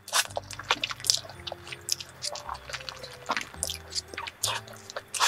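Slurping and chewing a mouthful of sauced instant cup spaghetti noodles: a run of short, irregular wet, sticky mouth sounds.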